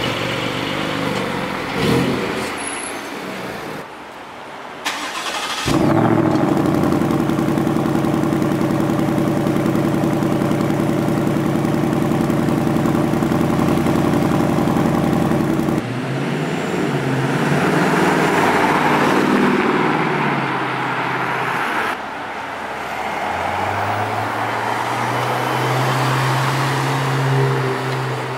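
A series of car engines: a Porsche 718 Cayman GT4 pulling away, then a Ford Mustang Mach 1's 5.0-litre V8 starting up and idling steadily for about ten seconds, and after a cut a Ferrari 488's engine at low revs as it drives off.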